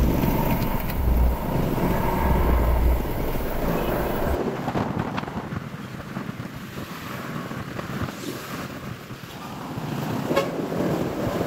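Motor scooter ride in city traffic: wind buffeting on the microphone and the noise of surrounding vehicles. The heavy low rumble drops suddenly about four seconds in, leaving quieter steady traffic noise.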